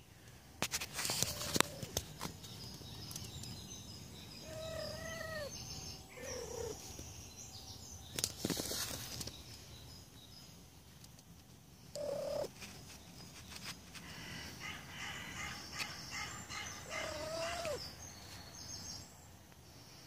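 A cat meowing several times in short calls that rise and fall in pitch. Between the calls come knocks and rubbing as the cat brushes against the phone, and small birds chirp faintly in the background.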